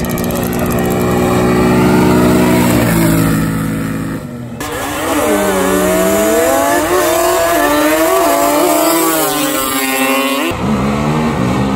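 ATV engines running hard as quads ride along the road: a steady high-revving note for the first few seconds, then, after a cut, engine pitch rising and falling as the riders rev up and back off.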